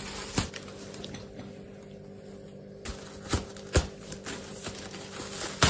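A faint steady hum with a few short, sharp taps or clicks scattered through it, the clearest near the start and a cluster about three to four seconds in.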